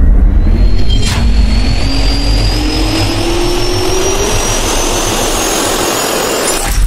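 Jet-engine spool-up sound effect: a loud rushing noise with a whine that climbs steadily in pitch, a sharp click about a second in, and a hit at the very end.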